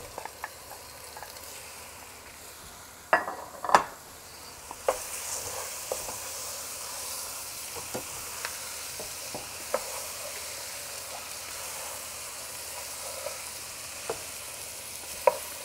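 Chunks of lamb and beef sizzling in hot oil with sautéed onions in a pot while a wooden spoon stirs them. There are two sharp knocks about three and four seconds in, and the sizzling grows louder about five seconds in, with a few light taps of the spoon.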